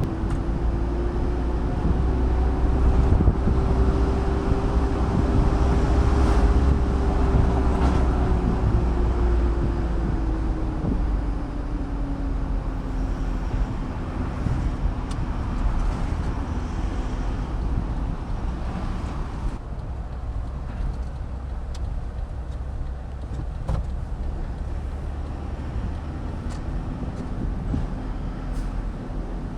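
Car driving on the road: a steady low rumble of engine and road noise, with a humming note that rises a little and then sinks and fades over the first dozen seconds.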